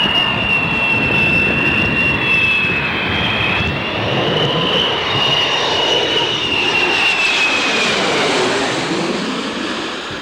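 McDonnell Douglas F-4 Phantom II jet fighters passing with their General Electric J79 turbojets running loud: a steady jet rush topped by a high whine that wavers in pitch and fades a little near the end.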